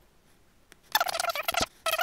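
A bird calling in quick chattering phrases, starting about a second in, with a sharp tap partway through.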